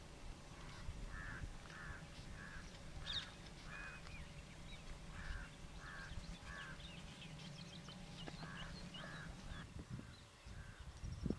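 Wild birds calling: a string of short, harsh calls, about two a second in runs with short gaps, over faint higher chirps from smaller birds and a steady low hum.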